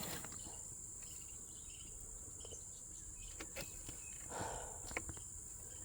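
Steady high-pitched trilling of insects such as crickets, with a few light clicks and a brief rustle about four and a half seconds in.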